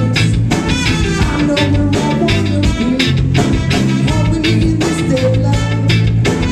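Live reggae-rock band playing: a trumpet plays the lead line over electric guitar, bass guitar and drum kit.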